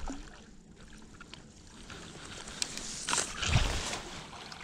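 Water splashing and sloshing as a landing net holding a carp is lifted out of the water, loudest about three seconds in.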